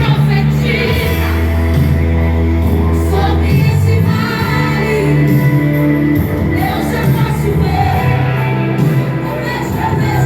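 Portuguese-language worship song playing: held bass and chord notes with singing over them.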